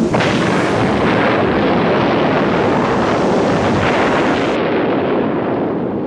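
A sudden loud blast, then a long, steady roaring rumble, like an explosion sound effect, easing slightly near the end.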